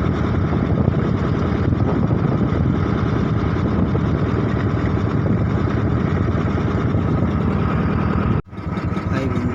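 Steady, loud low rumbling noise that drops out abruptly for a moment about eight and a half seconds in, then carries on.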